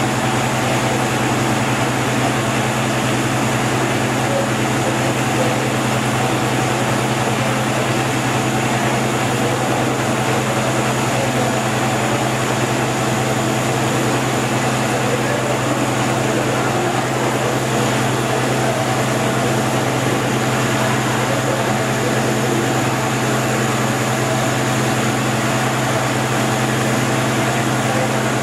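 Van de Graaff generator running, its electric motor and belt giving a steady, even hum.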